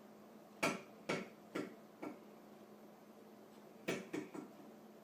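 Light taps or knocks: four about half a second apart, then a quick run of three near the end, over a faint steady hum.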